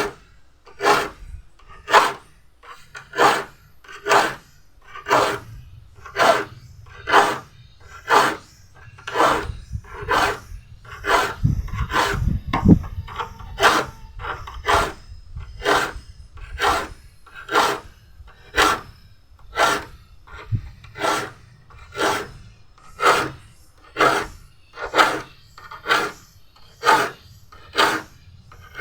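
Hand file sharpening the teeth of a crosscut hand saw, in short, evenly spaced strokes a bit more than one a second.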